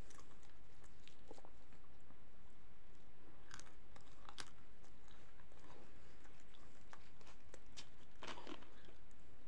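Close-up eating sounds: chewing and biting into a rolled lahmacun, with scattered crisp clicks and crunches. Near the end, a short crackle as the cap of a cola bottle is twisted open.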